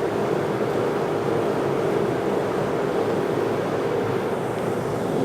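Shoe washing machine running mid-cycle: a steady mechanical hum with a faint constant tone.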